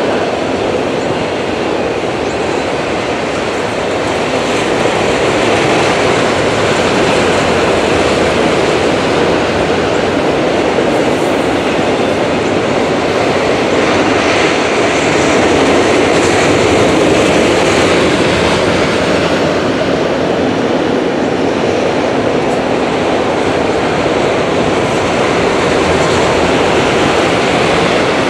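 Loaded autorack freight cars rolling past, their steel wheels running on the rails with a loud, steady rolling noise.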